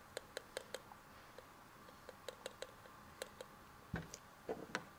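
Soft clicks from a hand-pumped oil can as its lever is worked to squirt oil onto a cartridge oil filter and its housing. The clicks come in short uneven runs of a few per second, with a dull thump about four seconds in and some handling noise near the end.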